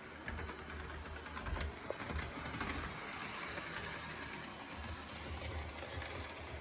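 HO-scale Athearn SD45T-2 model diesel locomotive running along the track: the steady whirr of its electric motor and gear drive, with a few light clicks from the wheels on the rails.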